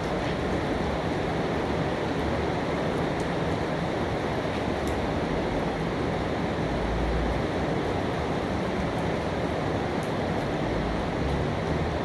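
Steady rain, an even hiss with a few faint ticks of single drops. A brief low rumble about seven seconds in.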